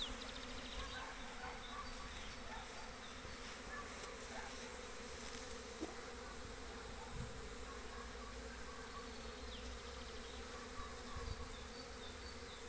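Honeybees buzzing in flight around a hive entrance, a steady hum of many bees out on their first cleansing flight of the year after overwintering.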